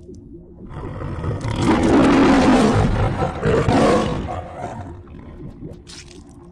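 A long, growling roar sound effect in the manner of the MGM lion's roar, swelling from about a second in, loudest in the middle, then fading away, over a low steady hum.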